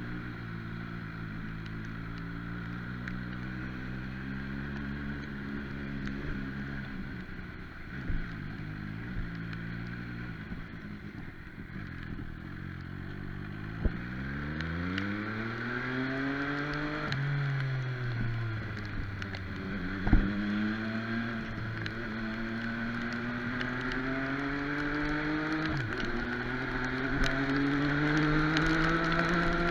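MV Agusta Brutale 800's three-cylinder engine under way: it holds steady, eases off, then revs up sharply in pitch about halfway through, drops back, and climbs slowly again toward the end. A steady hiss of wind and road noise runs underneath, with a few sharp clicks.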